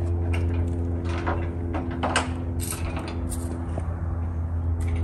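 Honda RC30 (VFR750R) V4 engine idling steadily, with scattered light clicks over the engine note.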